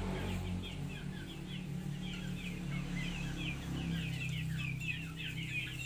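Birds chirping in quick short high calls, several a second, over a steady low hum.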